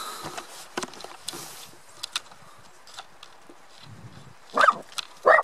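A dog barking twice, short and loud, near the end, after a few seconds of faint clicks and rustle.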